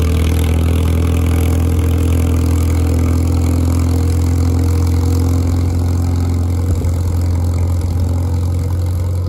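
IH TD-6 crawler's diesel engine running steadily through a straight exhaust, a loud, even drone as the tractor pulls a tire drag through deep snow.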